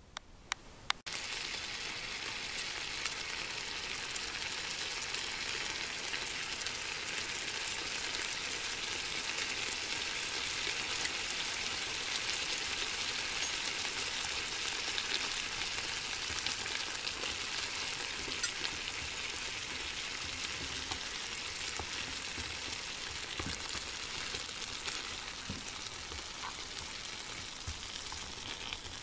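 Peppers steaming in a little water in a hot stainless steel frying pan, the water sizzling steadily as it boils off. The sizzle starts about a second in, after a few clicks, and there is one sharp tick about two-thirds of the way through.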